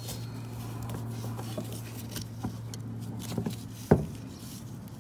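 Small metallic clicks and scrapes of gloved hands working a C clip onto the parking-brake lever pin of a drum brake shoe, with one sharp click about four seconds in. A steady low hum runs underneath and stops at that click.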